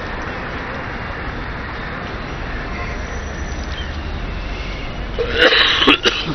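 Steady outdoor background noise, broken about five seconds in by a short, louder burst with a few sharp clicks.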